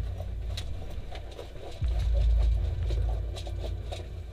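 Low rumbling handling noise on a body-worn camera's microphone, swelling about two seconds in and fading, with light rustling and small clicks of gear being moved.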